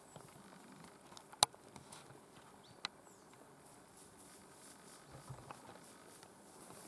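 Faint rustling and steps through long grass, with a sharp snap about a second and a half in and a smaller one near three seconds.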